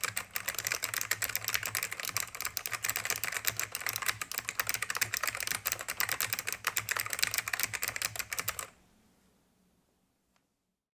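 Fast, continuous typing on an ACME 850 server-rack keyboard with Alps four-tab clone switches: a dense patter of key clicks that stops abruptly about three-quarters of the way through.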